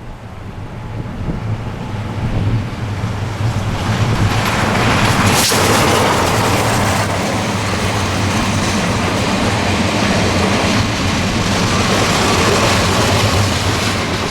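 Steam-hauled passenger train with a DE10 diesel locomotive going past. It grows louder over the first four seconds, then holds as a steady rumble of wheels and carriages over a low drone, with one sharp knock about five and a half seconds in.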